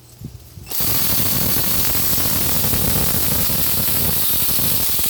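24-volt cordless mini chainsaw with a 4-inch bar, running at full speed and cutting into a branch with a dense, rattling chain noise. It starts about three-quarters of a second in and stops abruptly near the end.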